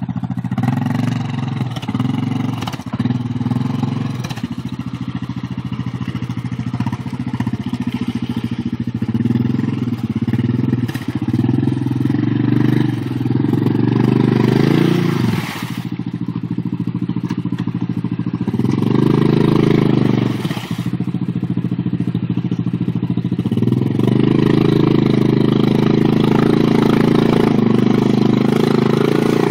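Yamaha ATV engine running hard under load through deep mud, revving up and falling back several times as the throttle is worked and the wheels dig and spin.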